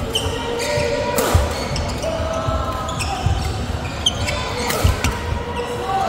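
Badminton play on an indoor court: sharp cracks of rackets striking the shuttlecock, loudest about a second in and near the end, amid short squeaks of court shoes on the floor.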